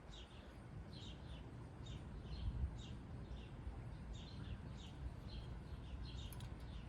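A small bird chirping over and over, about two to three short chirps a second, over a faint low background rumble.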